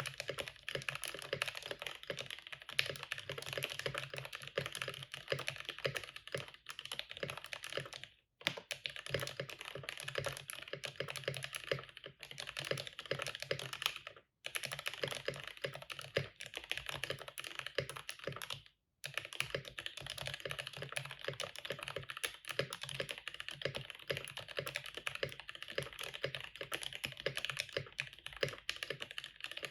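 Mechanical keyboard in a cardboard case with an aluminium half-plate, lubed and filmed Gateron Milky Yellow linear switches and PBT keycaps, being typed on steadily in a dense patter of keystrokes. Typing pauses briefly three times, about 8, 14 and 19 seconds in.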